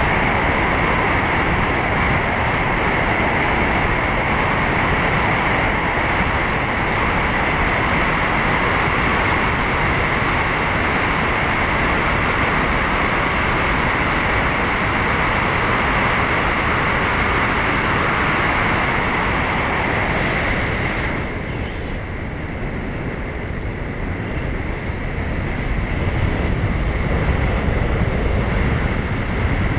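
Steady road and wind noise of a car driving along a highway. About two-thirds of the way through the hiss softens, and a low rumble builds again near the end.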